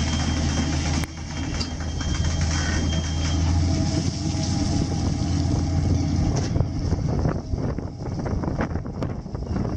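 Fishing boat's engine and net-hauling machinery running with a steady low hum while hoisting a net full of jellyfish aboard. From about two-thirds of the way through, irregular crackling noise joins in.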